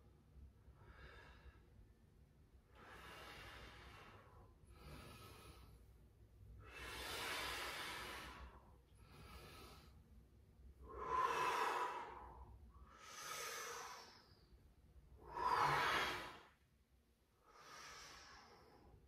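A person breathing deeply in and out during a slow warm-up exercise, about ten long breaths roughly two seconds apart, the louder ones in the second half.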